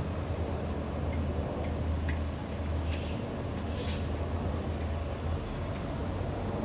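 Foothill Transit city bus running close by: a steady low rumble that eases off about five seconds in.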